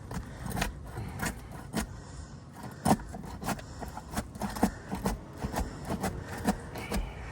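Irregular sharp clicks, knocks and scraping as a stuck, sealed-down asphalt roof shingle is pried loose, the shingle cracking and shedding granules as it is worked.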